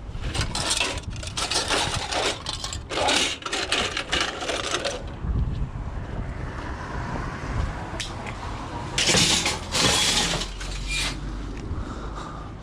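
Scrap metal clattering and scraping as it is handled and loaded, in two bouts: a long run of rattling over the first five seconds and a shorter one near the end.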